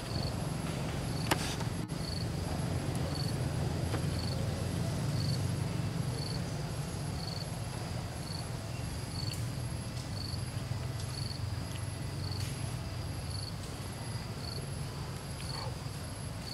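An insect chirping in a steady pulse about twice a second, over a steady low rumble and a few faint rustles.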